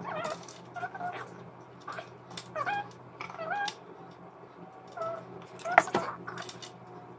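Dog whining: a series of short, high-pitched whines that bend up and down in pitch. A sharp click about six seconds in is the loudest sound.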